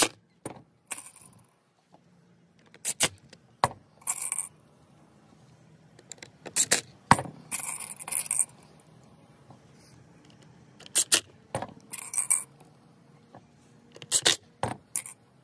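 Scattered short metallic clinks and rattles of small self-tapping screws being handled, with brief runs of a cordless DeWalt driver setting the screws into a plastic bumper piece.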